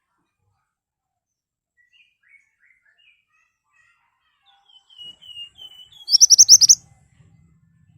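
Pied bushchat (mantenan) singing. Soft scattered chirps turn into a run of short down-slurred whistles, then about six seconds in comes a loud, rapid burst of sharp high notes.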